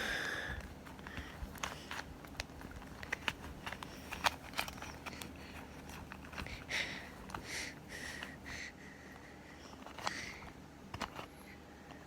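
Rubik's Cube being twisted by hand: irregular plastic clicks and scrapes as its layers turn, with a few brief hissy sounds in the middle.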